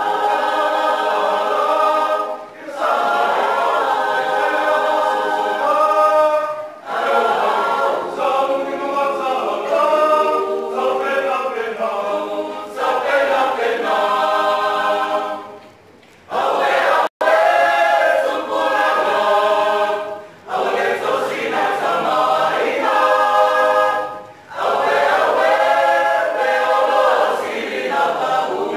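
Mixed choir of men's and women's voices singing a cappella in harmony, in sung phrases with short breaks between them and a brief drop-out a little past halfway.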